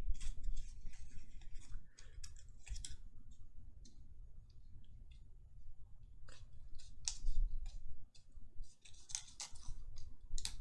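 Card stock being folded and handled along pre-scored lines: scattered small crinkles and clicks of paper, over a low rumble.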